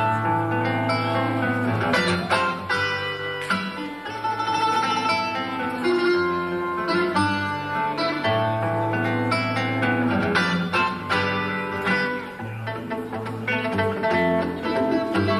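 A nylon-string classical guitar and a smaller guitar-like instrument playing an instrumental Caribbean piece together, with plucked melody notes over a steady bass line.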